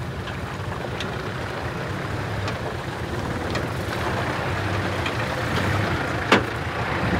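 Nissan GQ Patrol's TD42 4.2-litre six-cylinder diesel running steadily at low revs as the truck crawls through muddy ruts, with a few light clicks and one sharp knock about six seconds in.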